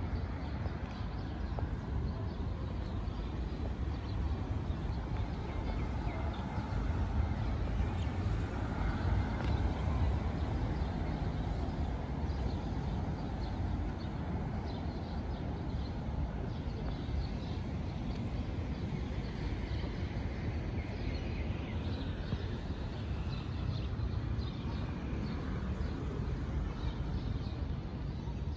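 Steady city street ambience, mostly a low traffic rumble, swelling a little about eight to ten seconds in.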